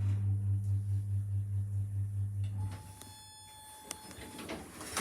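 Lift machinery giving a steady low hum that stops just under three seconds in as the car halts, followed by an electronic tone from the lift lasting about two seconds.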